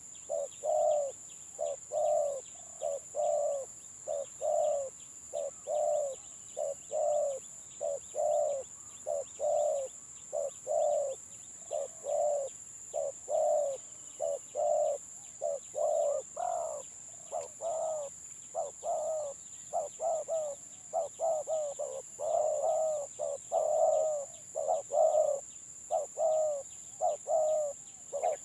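Two spotted doves cooing against each other in short, broken 'stuttering' coos, about one to two notes a second, with the calling growing denser and louder in the last third.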